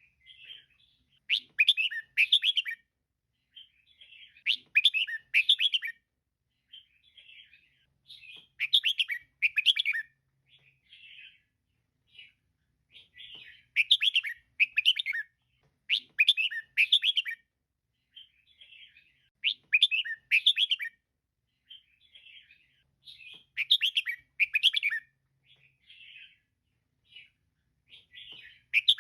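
Female red-whiskered bulbul calling: short bursts of quick, bright chirping notes repeated every couple of seconds, louder phrases alternating with softer ones.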